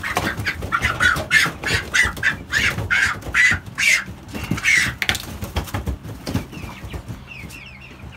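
Cobb 500 broiler chickens squawking, with flapping and scuffling, as one is grabbed by hand. The commotion is loud for about five seconds, then settles to soft clucks and peeps.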